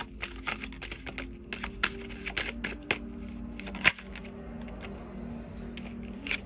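A deck of tarot cards being shuffled by hand: a run of irregular light clicks and taps, with one sharper snap about four seconds in.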